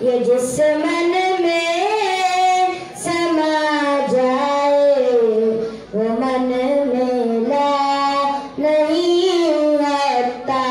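A boy singing a naat, a devotional song, unaccompanied into a microphone, in long held, ornamented phrases with short breaths between them every two or three seconds.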